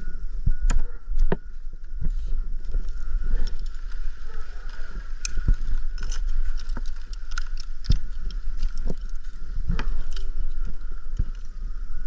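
Wind rumbling on the microphone, with frequent light clicks and clinks of a tree climber's carabiner and rope gear.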